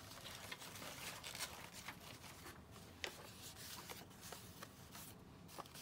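Faint rustling of paper being handled and sorted, with scattered light taps and clicks.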